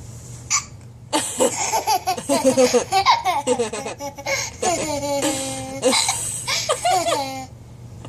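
A baby with hiccups laughing: a short hiccup about half a second in, then several seconds of high-pitched laughter in quick bursts that stops near the end.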